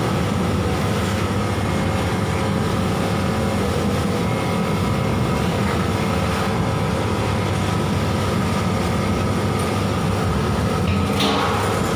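Rotary drum dryer with automatic stirrer running steadily under a test load of peppercorns: an even mechanical rumble with a few steady tones.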